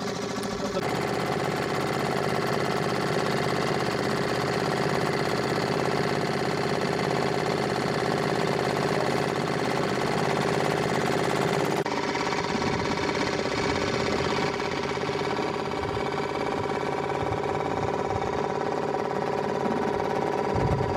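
An engine running at a steady speed, a constant hum over a haze of noise; about twelve seconds in the higher hiss falls away while the hum carries on.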